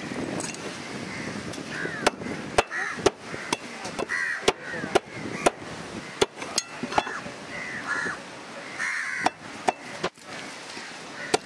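Large knife blade repeatedly striking and scraping a trevally on a wooden block to take off its scales: sharp, irregular knocks, about two a second. Crows caw several times in short, falling calls.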